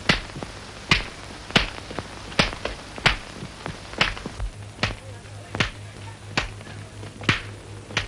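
A stick knocking on a pole in a steady beat, about one sharp knock every 0.8 seconds, over a low steady hum.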